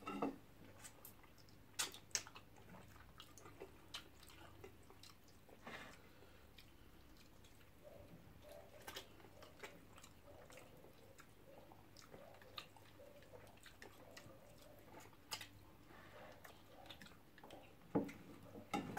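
Faint chewing and eating sounds of two people eating poundo and soup-soaked fish with their fingers, with scattered sharp mouth clicks and smacks.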